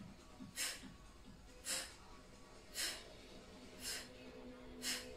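Quick, forceful breaths out, about one a second and five in all, each a short hissing puff, timed with fast repetitions of a resistance-band tricep press-back, over faint background music.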